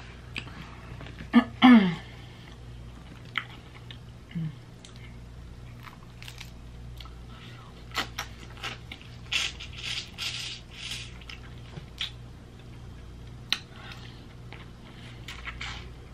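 Close-up eating of head-on shrimp: scattered clicks of chewing and cracking shell, and a run of wet sucking and slurping sounds about nine to eleven seconds in.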